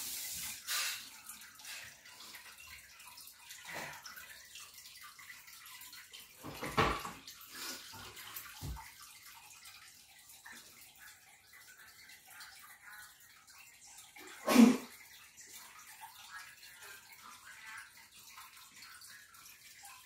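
Aquarium water running and trickling, a steady faint wash, with several brief louder noises, the loudest about fifteen seconds in.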